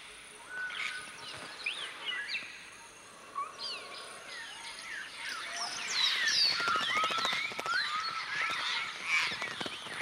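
A flock of African grey parrots calling: many short whistles and squawks that glide up and down in pitch. They grow denser and louder about six seconds in.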